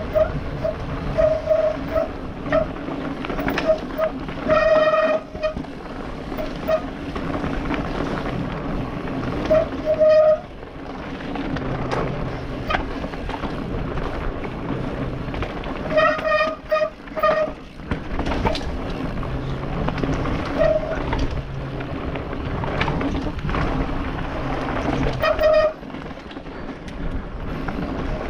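Mountain bike riding fast down a rough forest dirt trail: tyre rumble with frequent knocks and rattles over roots and bumps, and wind on a helmet-mounted camera. Short bursts of a high buzz come and go several times.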